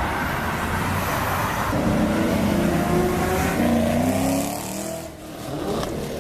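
A car engine revving, its pitch climbing for a few seconds, then dropping away about five seconds in.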